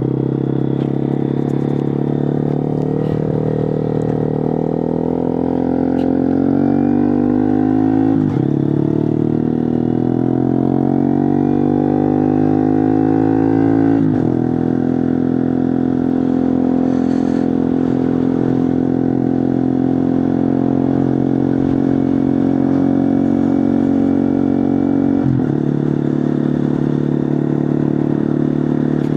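Honda Monkey 125's single-cylinder four-stroke engine through a Scorpion titanium exhaust with the baffle out, very loud on the move. The note climbs as it pulls through the gears, with breaks at upshifts about eight and fourteen seconds in, then holds a steady cruise, with one more brief break about three-quarters through.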